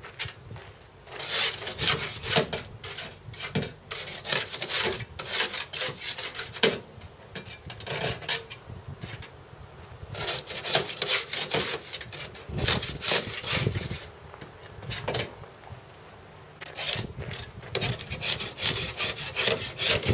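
A yacht's hull bottom being scraped by hand with a long-handled tool: quick rasping strokes in runs of several seconds, broken by short pauses about a second in, around nine seconds in, and for a few seconds past the middle.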